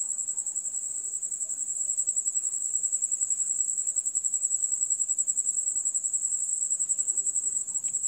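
Cricket trilling: one steady, high-pitched note pulsing rapidly.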